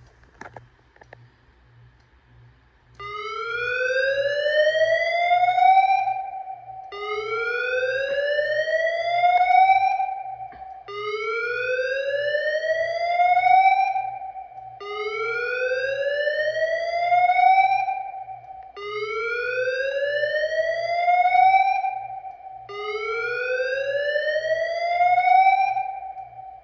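Fire alarm evacuation speaker sounding the slow whoop tone. About three seconds in, after a near-quiet start, it begins a rising sweep lasting about three seconds, repeated every four seconds.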